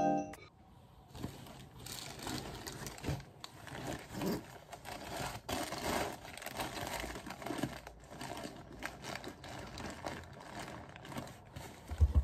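Fabric rustling and handling of a backpack as things are packed into it, with small irregular knocks and scrapes and a low bump near the end.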